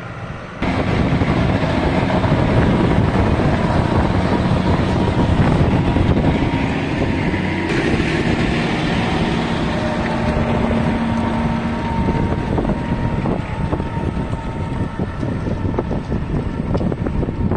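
John Deere 6215R tractor's six-cylinder diesel engine running steadily under load while pulling a six-furrow reversible plough, with wind buffeting the microphone. The sound jumps sharply louder about half a second in.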